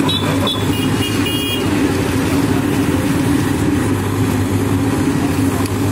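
Manitou TLB 844S backhoe loader's diesel engine running steadily as the backhoe arm works.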